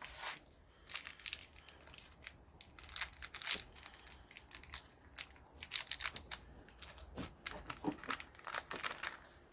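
Hands handling the small parts of a motorcycle chain master link kit: scattered light clicks and rustling as the O-rings are worked off the link.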